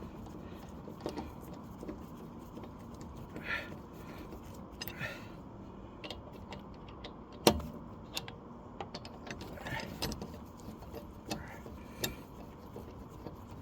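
Scattered metallic clinks and taps as the car's wheel nuts are handled and fitted with hand tools, with one louder knock about seven and a half seconds in.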